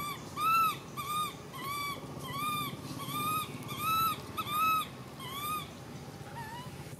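Baby macaque screaming: a run of short, high-pitched calls, each rising and falling in pitch, about two a second. The calls stop near the end, and one fainter call follows.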